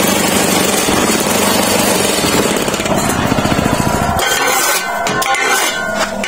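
Electric vibrator motor under the mould of a manual concrete-block press, running with a loud, rapid buzz through the steel frame to shake the block mix down and compact it. About four seconds in the sound changes, with ringing metallic clinks over it.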